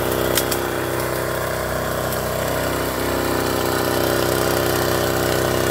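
Small engine of a motorized backpack weed sprayer running steadily, its pitch shifting slightly about three seconds in.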